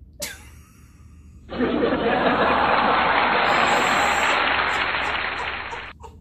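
A canned applause sound effect after a joke's punchline. It starts sharply about a second and a half in and cuts off abruptly near the end, with a woman laughing under it.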